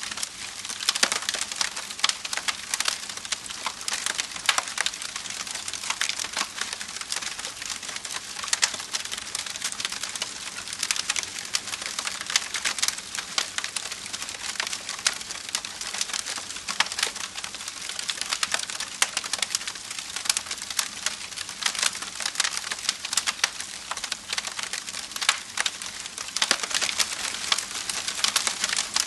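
Wood fire crackling: a dense, irregular run of small sharp pops and snaps that keeps on steadily, with no flames or hiss standing out below it.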